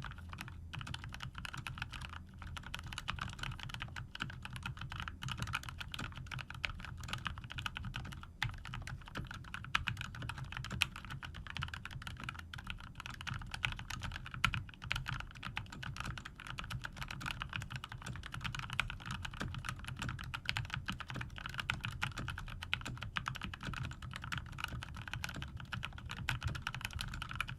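Continuous fast typing on a tenkeyless mechanical keyboard with lubed GMTX red linear switches and PBT keycaps: a dense, steady stream of keystrokes with a low thock under each click.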